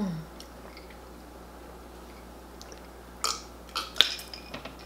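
Wet, open-mouthed smacking and squishing of messy eating: fufu with egusi soup eaten by hand and chewed loudly. A few short smacks come from about three seconds in, the loudest about four seconds in.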